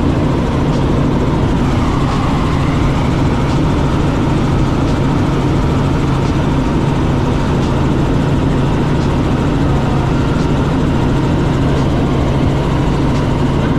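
Helicopter in flight heard from inside the cabin: a loud, steady drone of rotor and engine with a low hum, unchanging throughout.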